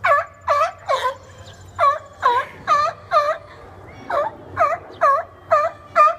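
Seals calling in a squabble: a rapid series of short, pitched calls, each dipping and then rising in pitch, coming in runs of three to six with short pauses between.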